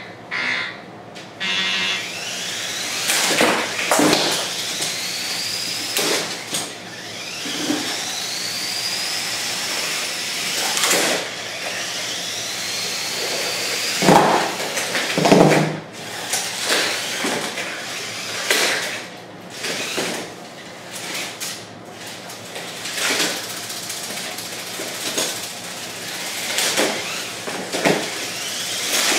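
Lego combat robots' electric motors whirring as their spinner weapons wind up in rising whines, with repeated sharp clatters of plastic Lego parts hitting each other and the cardboard arena walls; the loudest crashes come about halfway through. A short electronic beep near the start signals the end of the countdown.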